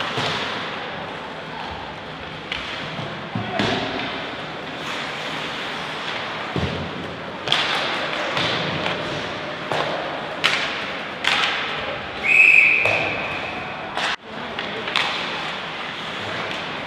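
Irregular sharp knocks and thuds of play, about eight of them scattered through the stretch, with a whistle blown once, briefly, about twelve seconds in.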